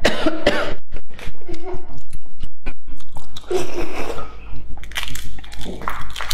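Brittle eggshell cracking and crackling as brown boiled eggs are peeled by hand, a rapid run of sharp clicks and crunches, then mouth and chewing sounds as a piece is eaten.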